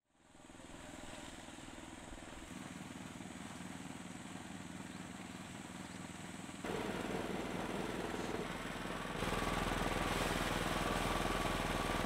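Engine-driven rice thresher running steadily while rice stalks are fed into it, a small engine's hum with a steady pitch. It gets louder in two steps, about halfway through and again near the end.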